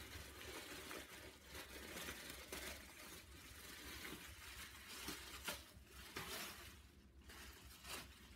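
Plastic wrapping and paper rustling and crinkling as wrapped goods are handled in a packed box, with irregular crackles and a couple of sharper ones about five and a half and eight seconds in.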